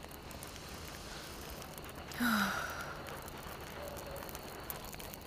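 A single breathy sigh about two seconds in, over a quiet background hush.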